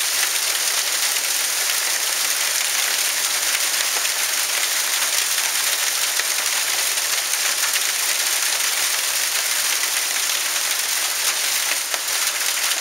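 Small hailstones pelting the ground and leaf litter: a dense, steady hiss of countless tiny impacts.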